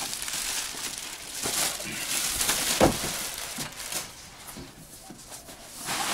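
Plastic wrapping and the fabric backpack of a packed inflatable stand-up paddle board rustling as it is handled, with a single thump about three seconds in.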